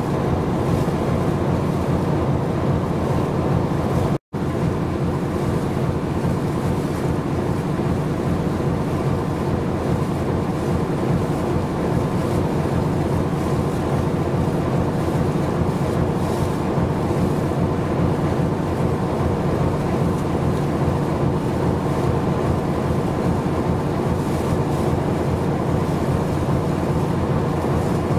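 Steady low drone of a ship's diesel engine, with a haze of wind and water noise over it; the sound cuts out completely for a split second about four seconds in.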